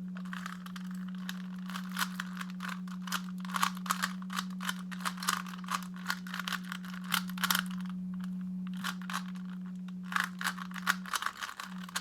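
Plastic Rubik's cube being turned quickly by hand: rapid, irregular clicking and rattling of the layers, over a steady low hum.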